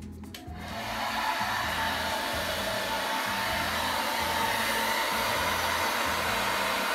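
Handheld hair dryer switched on about half a second in, then running steadily as it blows hot air onto wax crayons to melt them.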